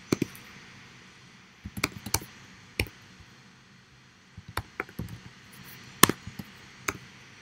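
Typing on a computer keyboard: sharp key clicks in short irregular bursts with pauses between, the loudest about six seconds in.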